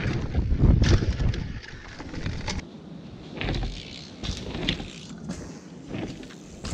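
Mountain bike riding a dirt forest trail: a loud rumble and rattle at first, then quieter, with scattered clicks and knocks from the tyres and frame.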